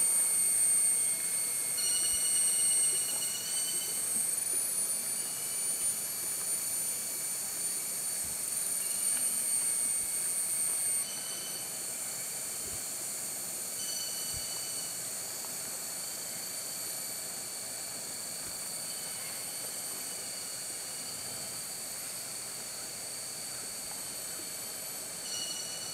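A chorus of forest insects: several steady, high-pitched buzzing tones, some cutting in and out every few seconds. The loudest and highest one stops about eleven seconds in.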